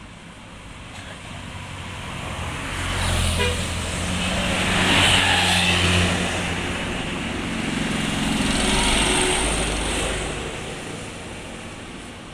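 Road vehicles driving past close by, one after another. The engine and tyre noise swells to a first pass about five seconds in and a second about nine seconds in, then fades.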